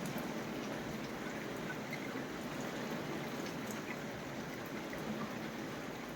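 Heavy, torrential rain falling steadily, an even hiss with faint scattered drips.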